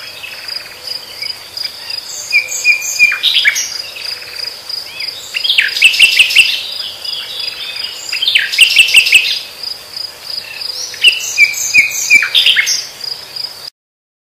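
Nightingale singing in four bursts of quick, varied phrases over a steady high-pitched cricket trill. The sound stops abruptly near the end.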